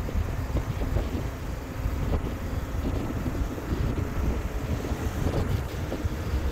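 Wind buffeting the microphone of a moving motorbike, a steady low rumble with road noise underneath.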